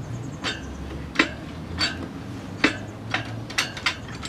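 Irregular sharp metallic clinks and knocks, about ten of them and uneven in loudness, as the inner tube is worked out of a motocross tire on a tire-changing machine, with tools and rim knocking against the metal stand.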